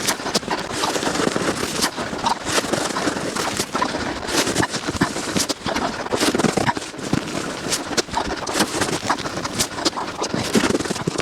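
Snow shovel scraping and crunching through packed snow, a continuous crackly scrape full of small sharp clicks.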